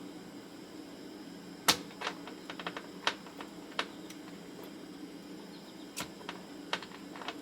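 Scattered sharp clicks and light ticks of small tools against a circuit board while an old chip is being desoldered, the loudest a single snap about a second and a half in. A steady low hum runs underneath.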